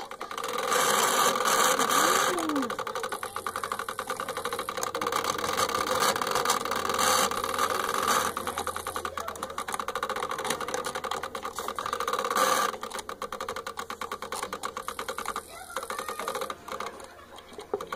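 The brass gear movement of an 1892 antique shelf clock running fast with a rapid, even rattling whir, many ticks a second, as the mainspring's power is let out.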